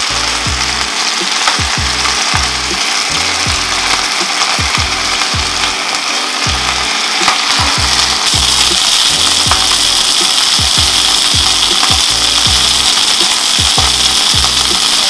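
Whole fish sizzling in hot oil in a frying pan, a steady loud hiss that grows louder about eight seconds in, around when the fish is turned over. Background music with a steady beat plays underneath.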